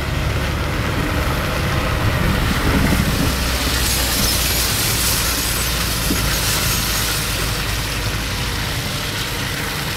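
Car driving along, heard from inside with the window open: a steady engine rumble under a hiss of tyres and wind, which grows louder about three and a half seconds in and eases near the end.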